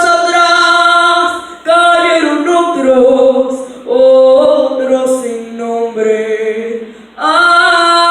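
A girl singing a slow song unaccompanied, in long held notes that glide between pitches, in phrases broken by short breaths.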